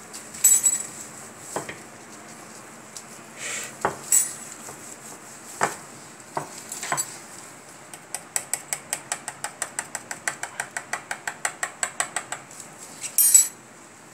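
Metal fork pricking a rolled papdi dough disc on a marble counter, the tines tapping through to the stone in a fast, even run of about eight ticks a second for some four seconds, the pricking that keeps the papdi from puffing up in the fry. Before it come scattered clicks and knocks of handling, and near the end a short, louder rustle.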